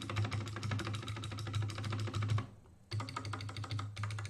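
Fast typing on a GK61 60% mechanical keyboard with clicky Kailh Box Pink switches and PBT keycaps: a dense run of key clicks, breaking off for half a second about two and a half seconds in, then resuming. A steady low hum sits underneath. The typing sounds nice, not too loud, a little low.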